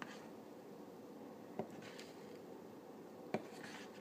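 Plastic spoon stirring a glue-and-water slime mixture on a paper plate, a quiet scraping with two light taps of the spoon about two seconds apart.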